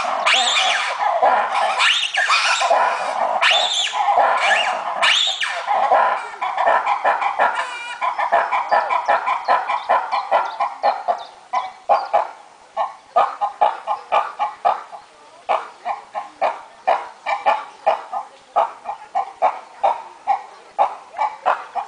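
Red ruffed lemurs calling in a loud roar-shriek chorus: several seconds of dense shrieking, then a run of rhythmic pulsed calls, about two a second, that grows fainter toward the end.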